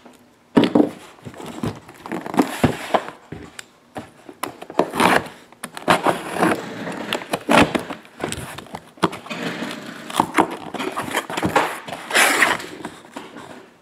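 A cardboard shipping case being opened by hand: irregular tearing, scraping and rustling of cardboard, packing tape and shrink-wrap, with sharp clicks and knocks as boxes are pulled out of it.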